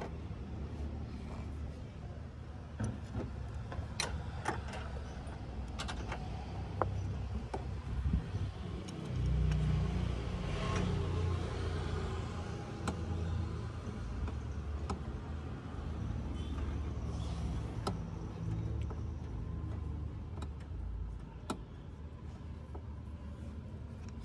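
A car engine running steadily with a low rumble that swells for a few seconds about a third of the way in, with scattered clicks and knocks over it.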